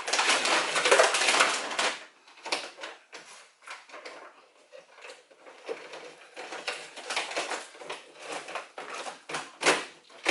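Old sound-deadening material from a car floor crackling and crunching as it is peeled and handled: loud for about the first two seconds, then scattered cracks and scrapes.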